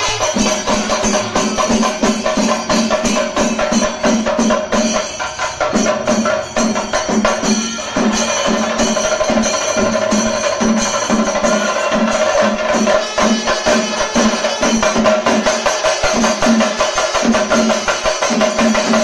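Kerala chenda drums played in a dense, fast rhythm, the rapid stick strokes running together with a ringing metallic jangle over a steady pulsing beat: chenda melam ensemble percussion.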